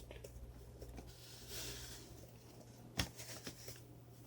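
Faint rustling and handling of a shipping package being opened, with small clicks and one sharper tap about three seconds in.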